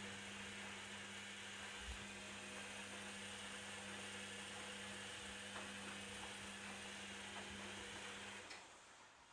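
Candy Activa washing machine filling: a steady electrical hum under a hiss of rushing water, typical of the water inlet valve letting water in, which shuts off suddenly about eight seconds in.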